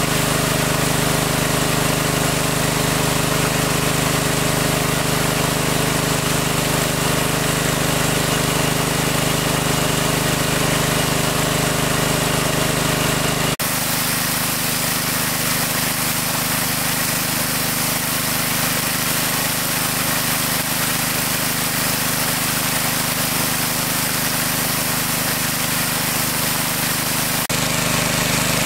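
A small engine running steadily at an even speed. Its tone changes abruptly about halfway through and again near the end.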